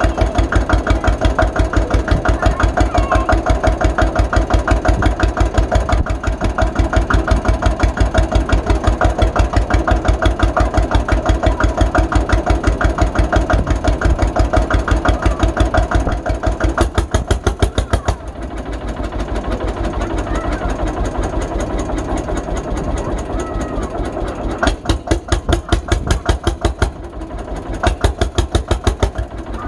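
Single-cylinder hot-bulb tractor engine of the Lanz Bulldog kind, running with a slow, even beat of separate firing strokes. About 18 s in the beat softens and blurs, then comes back sharp from about 25 s.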